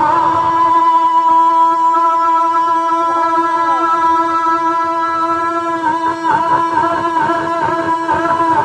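A man singing an Urdu devotional nazm through a loudspeaker system, holding one long steady note for about five seconds, then moving into wavering, ornamented phrases near the end.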